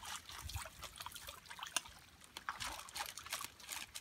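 Shallow muddy water trickling and running through a small dug channel, with irregular small splashes and clicks.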